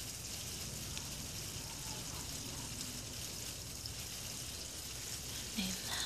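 Steady, even background hiss with no clear bird calls standing out.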